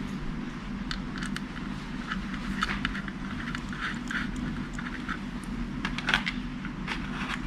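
Light, scattered clicks and taps of small parts being handled as Torx mounting screws are fitted to a laptop SSD, with a sharper click about six seconds in. A steady low hum runs underneath.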